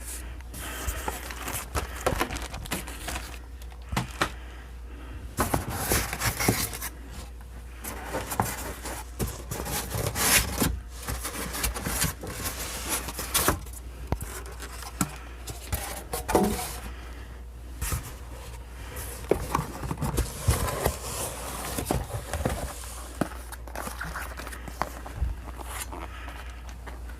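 Amplifier packaging being handled: irregular scraping, rustling and sharp knocks, over a steady low hum.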